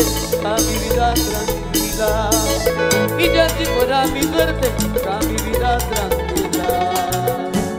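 Live Peruvian chicha (tropical-andina cumbia) band playing an instrumental passage: wavering lead melody lines over a steady bass, with percussion and cymbals keeping a dance beat.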